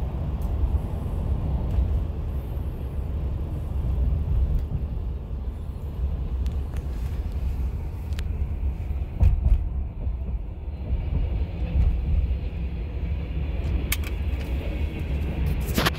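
Steady low rumble of road and engine noise heard inside a moving car's cabin, with a few sharp clicks near the end.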